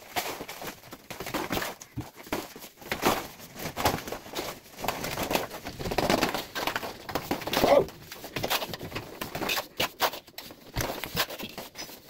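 Irregular slaps and scrapes of wet cement plaster being thrown by hand onto a concrete ceiling and worked across its surface.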